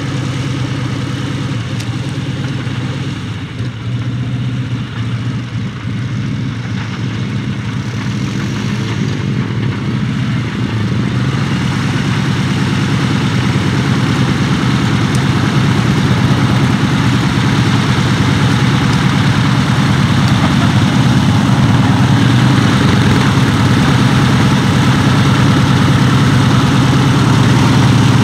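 Percival Provost T1's Alvis Leonides nine-cylinder radial engine running at low taxiing power, a steady low drone that grows louder as the aircraft taxis closer.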